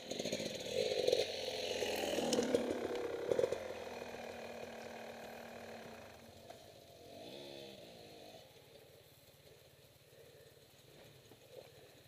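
Dirt bike engine running and revving hard in the first few seconds, then fading away to a low, steady hum. A short rising rev comes about seven seconds in.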